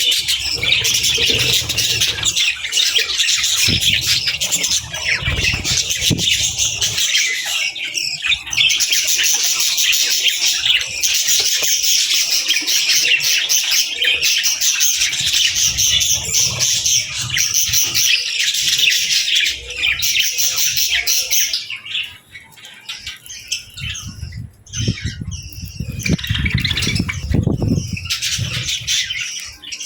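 Budgies and lovebirds chirping and squawking together in a dense, continuous high twitter. The chorus thins out about two-thirds of the way through, leaving scattered chirps over a low rumble.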